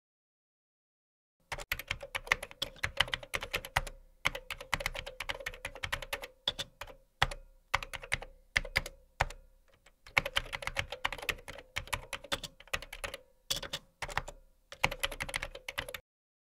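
Typing on a computer keyboard: quick runs of keystrokes with brief breaks between them, starting about a second and a half in and stopping just before the end.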